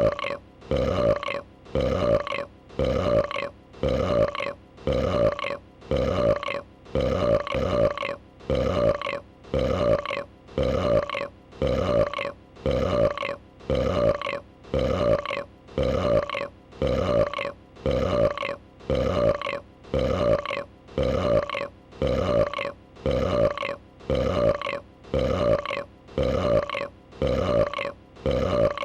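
A female dragon's burp sound effect repeating in an unchanging loop, about one identical short burp every second.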